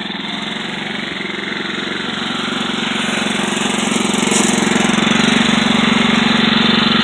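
Riding lawn mower's 14 hp Kohler Command single-cylinder engine running with a rapid, even beat, growing steadily louder.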